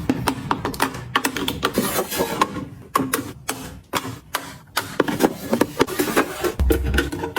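Quick irregular clicks, taps and clacks of small hard containers and packaging being handled, opened and set down, several a second, with a dull low thump near the end.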